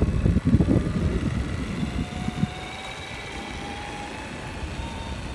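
Electric motor of a radio-controlled toy truck whining faintly, slowly rising in pitch as it drives on. For the first two and a half seconds a louder low rumble of wind on the microphone covers it.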